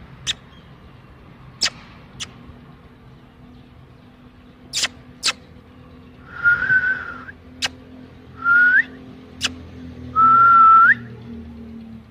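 A person whistling to a puppy: three short whistled notes starting about six seconds in, each held and then flicking upward at the end. Sharp clicks are scattered between them.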